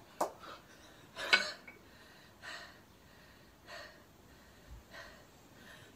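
A kettlebell athlete breathing hard in short, sharp exhales through a two-arm long cycle. About a second in, a sharp metallic knock as the two kettlebells land in the rack.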